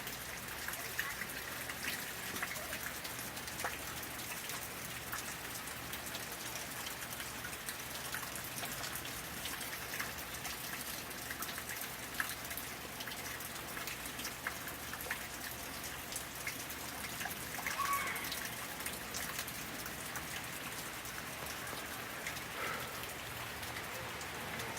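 Rain falling steadily, with many individual drops ticking on nearby surfaces from a thunderstorm's rain core.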